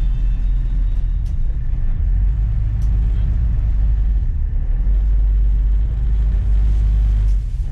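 Ferry engine running with a steady, loud low rumble, heard on board, dipping briefly just before the end.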